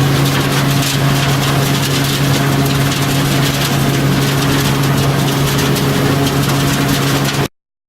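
Mobile trommel screener running steadily: a constant engine hum under a dense, rattling noise. It stops abruptly near the end.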